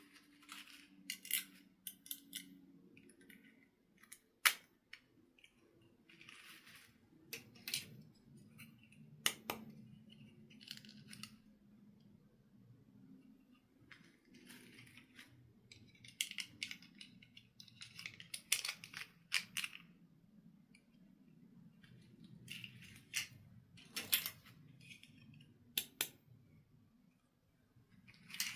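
Hands handling plastic doll toys and packaging: scattered sharp clicks and short rustling scrapes at irregular intervals.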